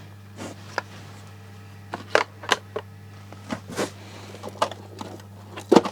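Irregular small clicks and knocks of vintage electronic parts being picked up, turned over and set down, about a dozen taps with the loudest near the end, over a steady low hum.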